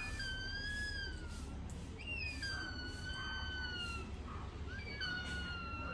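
Pet parrot giving three long, clear whistles, each slightly falling in pitch.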